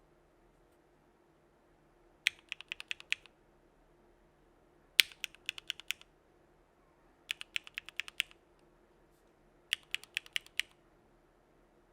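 Mechanical keyboard with Gateron Blue Bubblegum linear switches on an aluminium plate (Geonworks Frog) being typed on in four short bursts of quick keystrokes, each about a second long with six to eight clacks, separated by short pauses.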